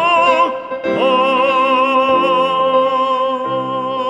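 Background music: an operatic voice holds one long note with wide vibrato over orchestral accompaniment. The note breaks briefly just before a second in, then is sustained to the end.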